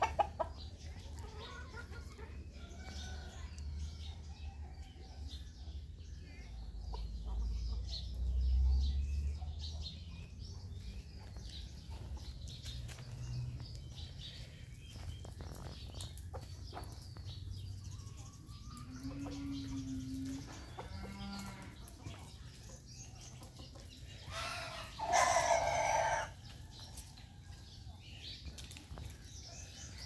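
A flock of domestic chickens clucking, with short calls scattered throughout. Near the end a rooster crows once, for about a second and a half; this is the loudest sound.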